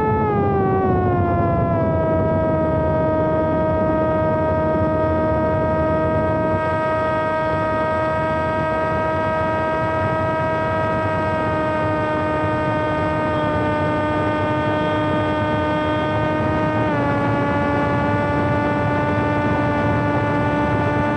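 An RC flying wing's pusher propeller and motor in flight, heard from on board: a steady whine with many overtones. It drops in pitch over the first couple of seconds and steps down a little again about 17 seconds in, over a low rush of wind.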